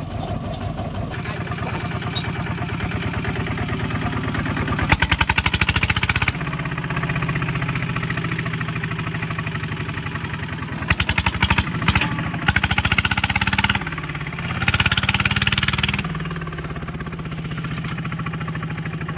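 Walking tractor's single-cylinder diesel engine running with a steady pulsing beat. It revs up in several louder bursts, about five seconds in and again in the second half, as it hauls a loaded trailer.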